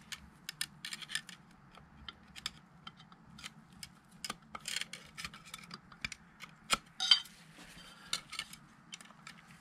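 Snap ring being worked into its groove inside a steel transmission clutch drum with a pick: a run of small, irregular metallic clicks and light scrapes, with one sharper click about two-thirds of the way through.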